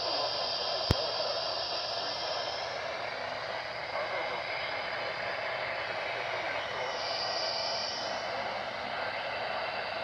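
Steady static hiss from a Midland handheld NOAA weather radio's speaker, its signal weak and noisy. A single sharp click sounds about a second in.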